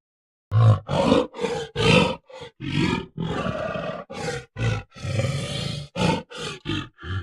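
Gorilla vocalising: a quick run of short roaring grunts, with two longer roars in the middle.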